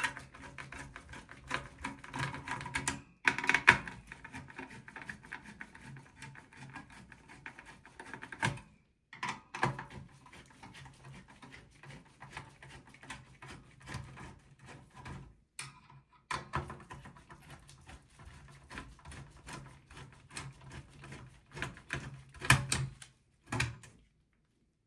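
Screwdriver work on a desktop PC's CPU cooler: irregular small clicks, taps and rattles of the tool and screws against the metal heatsink and chassis, with a couple of louder knocks.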